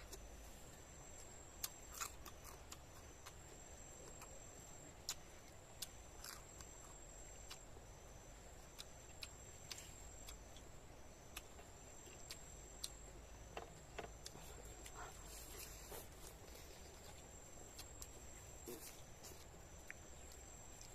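Faint eating sounds: scattered small clicks and soft crunches of chewing, over a faint steady high-pitched whine.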